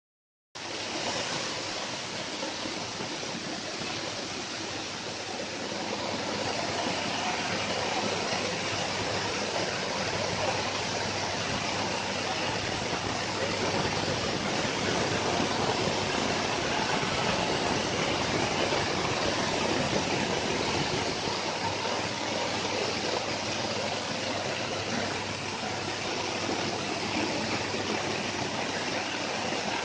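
Stainless steel coffee huller running, stripping the dry husks from coffee: a steady, dense rushing rattle of beans passing through the machine.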